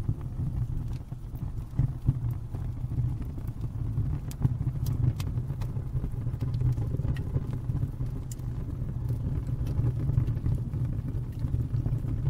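A fire burning: a steady low rumble with scattered sharp crackles and pops.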